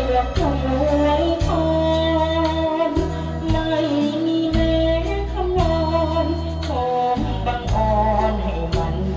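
A teenage boy singing a Thai luk thung song into a microphone, with vibrato on held notes, over backing music with a steady bass line.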